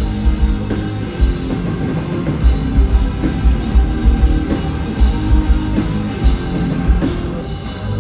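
Rock band playing live, with the drum kit up front: repeated heavy kick-drum hits and cymbals over guitar and bass.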